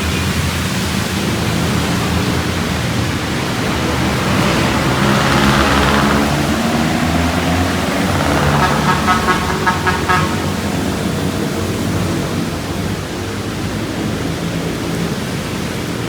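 Street traffic on a rain-wet road: engines running steadily and a vehicle passing with tyre hiss about five seconds in. A horn sounds with a pulsing, warbling tone around nine seconds in.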